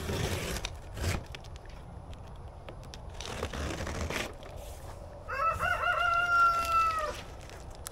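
A rooster crowing once, a bit over five seconds in: a broken, wavering start drawn out into one long held note, nearly two seconds in all. Before it, a few knocks and rustles.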